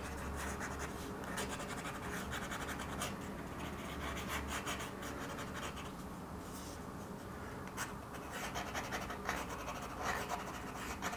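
Fountain pen nib scratching across sketchbook paper in many quick, short, irregular strokes.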